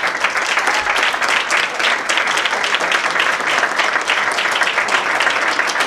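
Audience applauding: dense, steady clapping of many hands, loud and unbroken.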